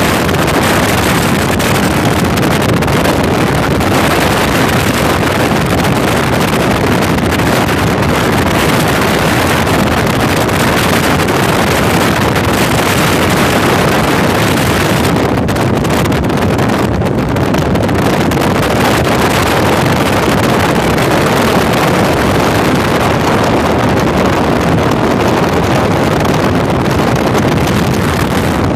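A motorboat running steadily underway, with a loud, even rush of wind on the microphone.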